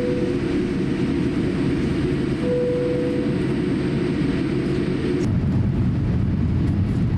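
Cabin noise of a Boeing 787-8 with GEnx-1B jet engines, heard from a window seat over the wing: a steady rumble with a constant hum. About five seconds in it changes abruptly to a deeper, heavier rumble.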